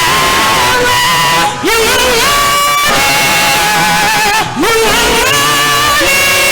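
Live gospel worship music: a voice holding long notes that slide up into each pitch, over band accompaniment, with two short breaks between phrases.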